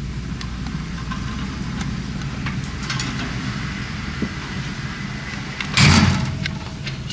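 Car engine idling with a steady low hum, with small clicks and one loud knock about six seconds in.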